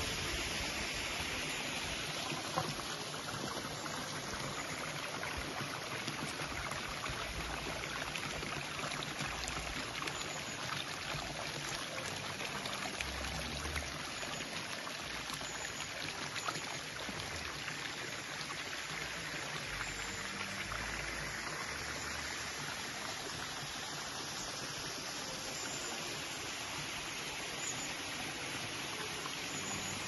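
A woodland stream running, a steady rushing of water.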